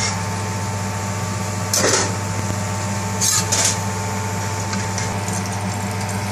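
Steady mechanical kitchen hum, with a metal spatula scraping across an iron tawa twice, about two seconds in and again around three and a half seconds, as it slides under a cooked paratha.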